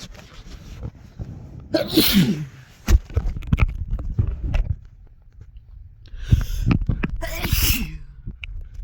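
A person sneezing twice: a short loud sneeze about two seconds in, then a longer one near the end.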